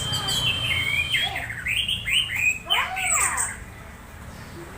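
Orange-headed thrush singing: a long, steady high whistle, then a quick run of sliding, arched notes that dies away over the last second.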